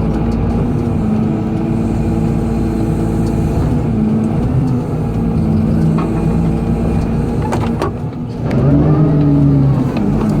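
Excavator diesel engine running under hydraulic load while working the bucket, its pitch shifting as the load changes and swelling louder near the end, with a few short knocks just before.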